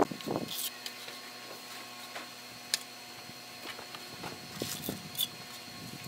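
Faint scrapes and a few short taps of a steel trowel working wet cement mortar, over a low steady hum.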